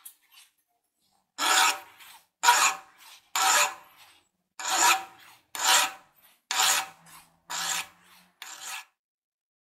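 Hand metal file rasping across the end of a small metal part clamped in a bench vise: eight strokes, each about half a second long and about a second apart, the last one weaker.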